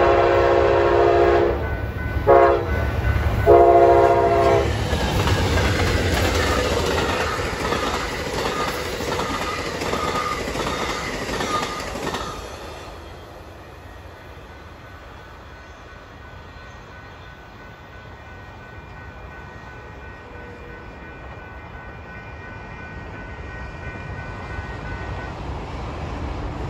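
Amtrak GE P42 locomotive horn sounding the end of a grade-crossing signal (a long blast, a short one, then another long one) as the train passes close by. The rumble and clickety-clack of its Superliner cars follow, and drop off sharply about twelve seconds in as the train recedes into a faint distant rumble.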